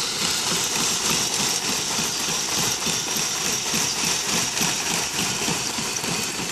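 Homemade motor-driven sieve running: a small motor and belt turn a wheel whose crank rod shakes a wooden-framed wire-mesh screen, giving a steady mechanical run with a fast, even rattle of the frame as substrate sifts through the mesh.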